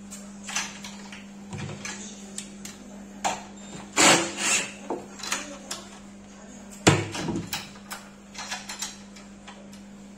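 Irregular knocks and clicks as hands and a cordless screwdriver work at the metal hinge hardware and particleboard panels of a flat-pack wall cabinet, with two louder knocks about four and seven seconds in. A steady low hum runs underneath.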